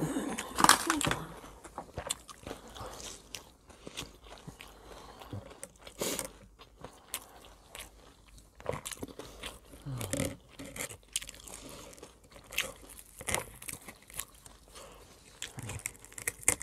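Close-up chewing and crunching of breaded chicken nuggets, with irregular crisp bites and mouth sounds.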